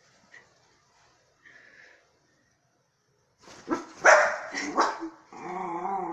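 Small dog barking, a quick run of four or so sharp barks about three and a half seconds in, then a long wavering growl; the dog is frightened of a lighter.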